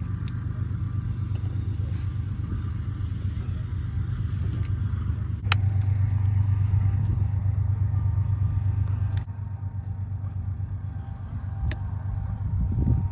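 An engine running steadily with a low, even hum, getting louder about five and a half seconds in and quieter again about nine seconds in, with a few sharp knocks.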